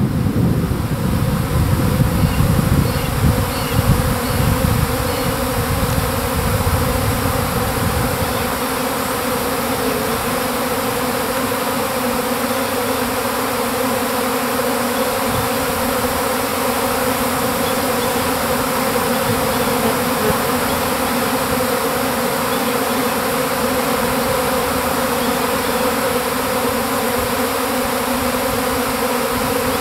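Honeybee swarm in flight: a loud, steady hum of many bees pouring out of and around their hive. A low rumble sits under the hum for the first eight seconds or so.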